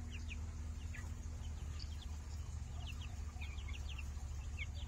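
Young silkie chickens peeping: many short, high, falling peeps scattered throughout, over a low steady hum.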